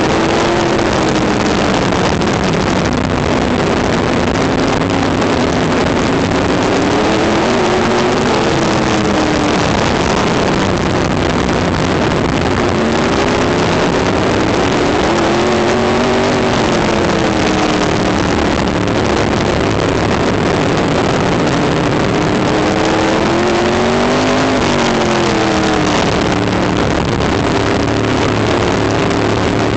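Winged open-wheel race car's engine heard from the in-car camera, its pitch rising and falling several times as the driver gets on and off the throttle around the track, over a constant rush of noise.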